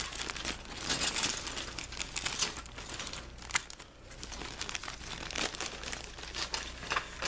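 Clear plastic bag holding a plastic model kit's parts sprues crinkling as it is handled and turned over, an irregular run of crackles.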